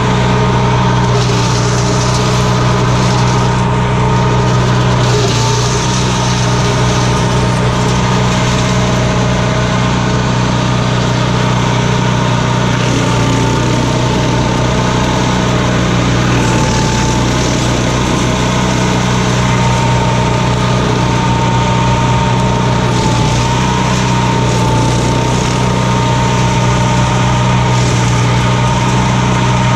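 Old wood chipper-shredder's small engine running steadily at an even speed, with a steady whine above the engine note.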